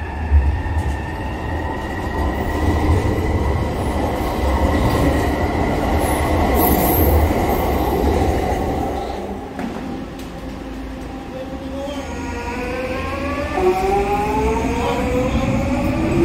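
SkyTrain trains on elevated track: a train's wheel and running noise, with a knock about half a second in, fading as it pulls away. Later another SkyTrain's linear-induction-motor whine rises steadily in pitch as it accelerates away from the platform.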